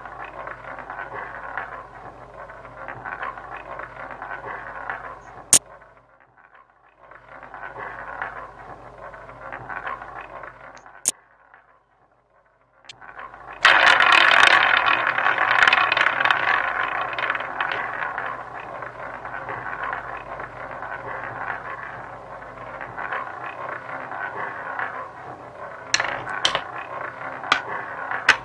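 Online roulette game sound effects: sharp clicks as chips are placed, then, after the spin about halfway through, the ball rolling round the wheel, loudest at first and slowly fading, with a few clatters near the end as it drops into a pocket.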